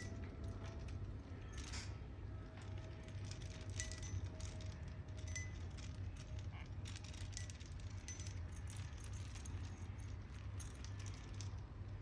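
Metal chain and small bell of a hanging bird-swing toy jingling and clinking in irregular light clicks as the swing is moved, over a steady low hum.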